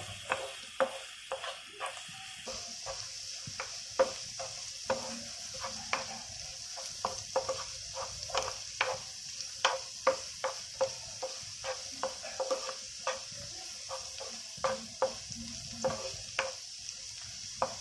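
Chopped onion, garlic and green chillies sizzling in oil in a non-stick frying pan while a wooden spatula stirs them, scraping and tapping against the pan many times at an uneven pace. The onion is being sautéed, under a steady frying hiss.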